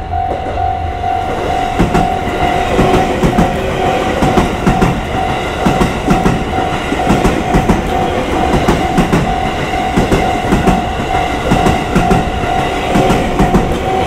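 JR 281 series Haruka limited express electric train passing close by over a level crossing, its wheels clacking steadily over the rail joints from about two seconds in. A Japanese level-crossing bell rings in a steady repeating beat under it.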